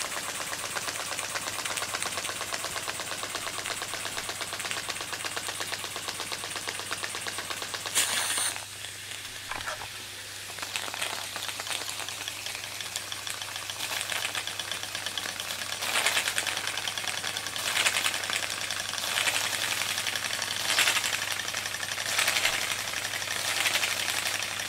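Märklin toy steam engine running fast, its piston freshly repacked with graphited yarn: a rapid, even chuffing clatter with steam hiss. A short loud hiss about eight seconds in is followed by a quieter spell, and louder hissing spurts come and go in the second half.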